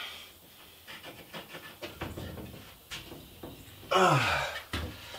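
A man's breathy grunt, falling in pitch, about four seconds in as he rises from a squat. Before it, faint light taps and knocks from handling a sheet of cement board.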